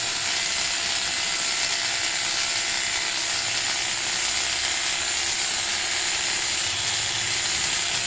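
Electric hair clippers running steadily while cutting hair, a continuous buzz with no pauses.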